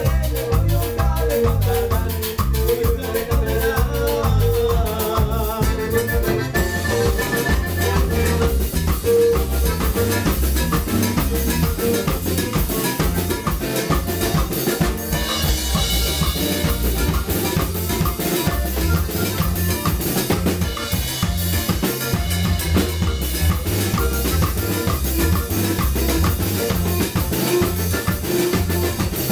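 Live band playing dance music, with a drum kit and its cymbals carrying a steady beat. The cymbals ring brighter from about halfway through.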